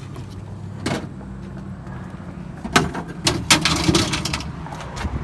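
Metal curbside appliances being handled: a knock about a second in, then a burst of clattering knocks and rattles, like an appliance door or drawer being opened. A steady low hum runs underneath.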